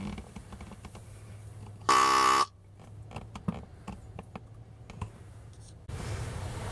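Tube deer grunt call blown once: a single grunt about half a second long, steady in pitch, about two seconds in. A few faint clicks follow.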